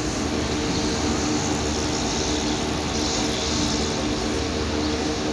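City bus with its diesel engine idling: a steady hum with a low rumble under it.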